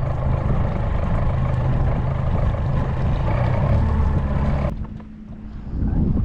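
Motorboat engine running under way with wind rushing over the microphone. A little more than two-thirds of the way through, the sound drops away suddenly for about a second, then comes back.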